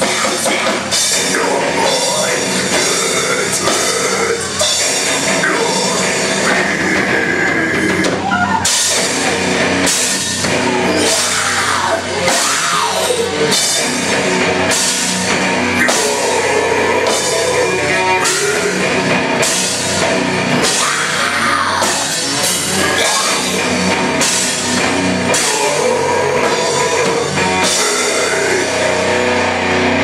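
Live rock band playing loud with electric guitars, bass and a full drum kit. From about nine seconds in, cymbals crash on a steady beat.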